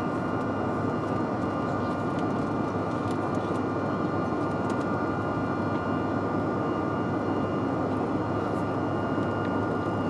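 Jet airliner's engines and airflow heard inside the passenger cabin during the climb after takeoff: a steady rushing drone with a constant high whine over it.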